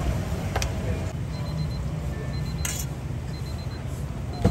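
Steady low rumble of background noise at a night-market food stall, with a faint high electronic beep repeating about once a second, a single click near the start and a brief hiss near the middle.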